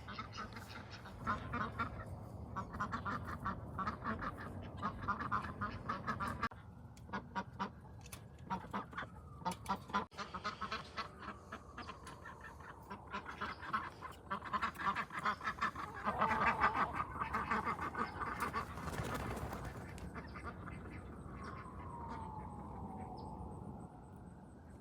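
Domestic ducks quacking in rapid runs of calls that come and go, loudest and busiest a little past the middle. Near the end a single drawn-out sound falls in pitch.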